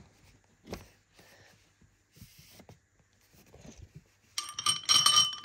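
Faint scrapes and taps, then, about four and a half seconds in, a metal spoon clinking against a hard dish a few times, with a short ringing.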